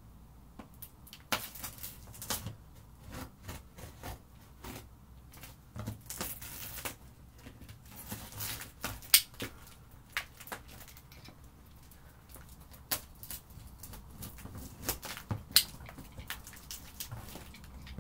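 Box cutter slicing along packing tape on a cardboard box: scratchy cuts and scrapes with many scattered sharp clicks and taps, two of them louder, near the middle and near the end.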